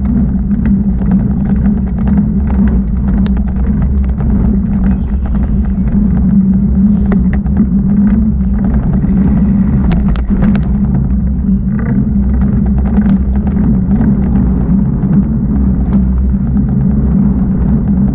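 Mountain bike riding fast along a dirt singletrack: steady low wind and tyre noise on the bike-mounted camera's microphone, with frequent clicks and rattles from the bike over the trail.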